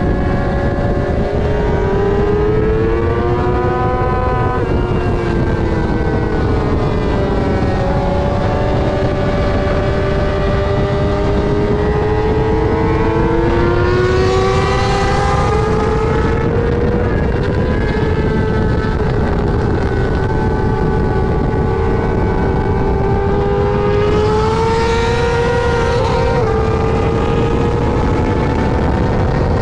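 Onboard sound of a Yamaha R6's inline-four engine running near the top of its rev range at racing speed, its pitch rising and falling through the corners, with a quick step down in pitch near the end as it shifts up on the straight. A heavy rush of wind lies under the engine throughout.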